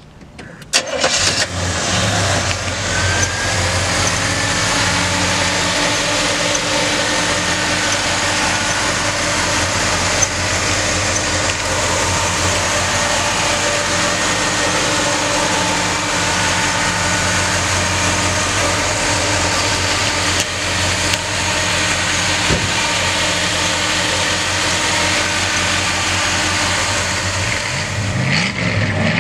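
A 1963 Chevrolet Nova's 283 cubic-inch V8 cranks and catches about a second in, then idles steadily.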